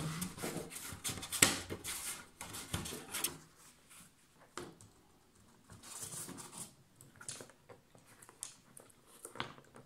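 Handling noise from fitting a petal onto the hub of a garden wind spinner: irregular clicks, taps and rustles, busiest in the first three seconds, with a sharp click about a second and a half in and a few lighter clicks later.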